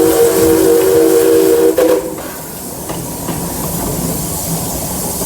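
Steam locomotive's whistle sounding one long, steady blast that cuts off about two seconds in, over a continuous hiss of steam and the train running.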